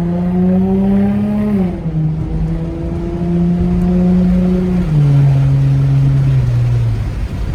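Infiniti G35's 3.5-litre V6 pulling under acceleration, its note rising steadily and dropping with gear changes about a second and a half in and again near five seconds, then easing off near the end.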